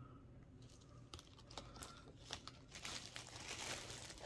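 Faint crinkling of a thin plastic bag being rummaged for small plastic figures. Scattered sharp crackles begin about half a second in and thicken into steady crinkling near the end.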